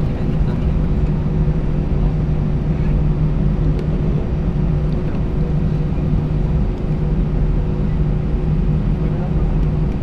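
Steady cabin drone of an Airbus A320-232's IAE V2500 turbofan engines at low taxi power, a low hum with a couple of steady tones under it.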